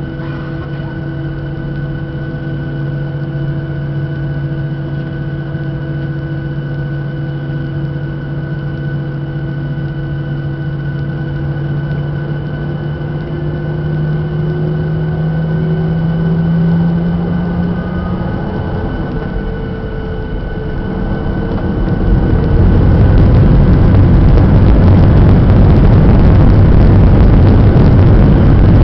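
Boeing 737-800's CFM56-7B turbofan engines heard through the cabin window over the wing, running with a steady whine at taxi power. About 22 seconds in they spool up to takeoff thrust and the sound turns into a much louder, dense roar that holds.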